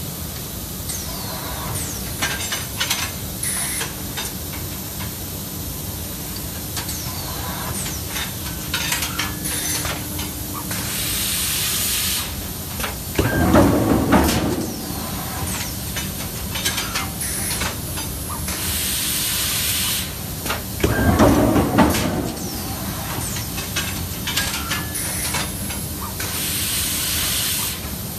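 Automatic hot-forging line cycling: a steady machine hum, pneumatic air-blast hisses about a second and a half long roughly every eight seconds, each followed about a second later by a loud clanking burst of the forging cycle. Scattered clicks and clanks come from the pneumatic handling gear in between.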